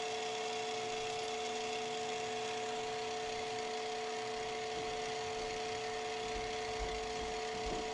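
A steady A440 reference tone singing with a second, higher steady tone, over the even running of the Stroboconn's motor and gearbox. Faint low bumps come in the second half as the gearbox is handled during oiling.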